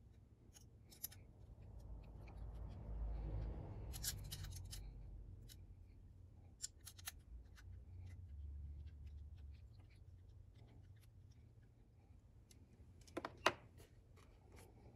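Light clicks, scratches and taps of small screws and 3D-printed plastic parts being handled and tightened with a hex key during hand assembly. A low rumble swells and fades in the first half, and a sharp cluster of clicks a little before the end is the loudest sound.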